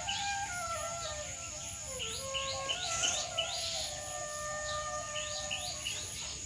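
Soft instrumental background music with a slow melody of held notes, with short rising bird chirps repeating in small groups above it.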